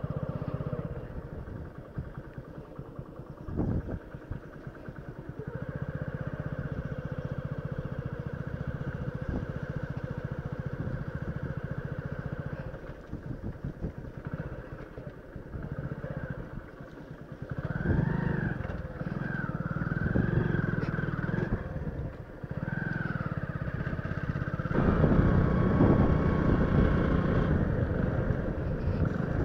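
Motorcycle engine running as the bike is ridden, its note changing with the throttle; it grows louder around the middle and is loudest near the end.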